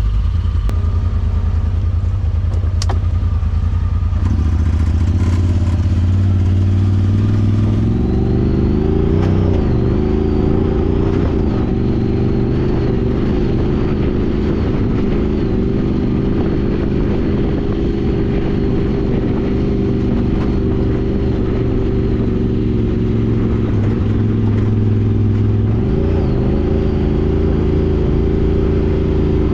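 Side-by-side UTV engine running under load, its pitch rising and falling several times as the throttle is worked on a rough trail.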